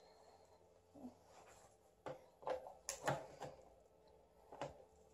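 Faint clicks and taps of small plastic toy-vanity pieces being handled and set down, several in quick succession in the middle and one more near the end.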